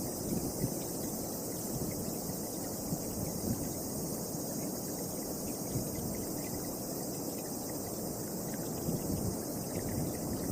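Wind buffeting the microphone in a low, gusty rumble, with a steady high chirring of insects over it.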